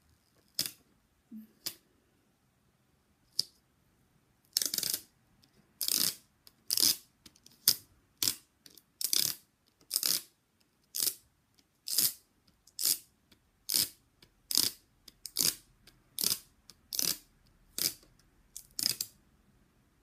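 A sticky dust-removal sticker is pressed onto a phone screen and peeled off again and again, giving a short peeling rip each time. There are a few scattered ones at first, then about one a second from about five seconds in.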